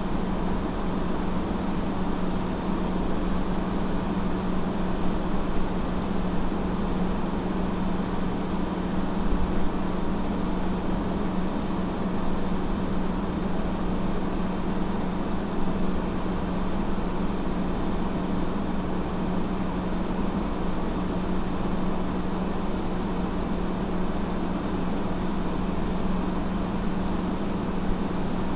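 A motor running steadily: a constant low hum over an even rushing noise, unchanging throughout.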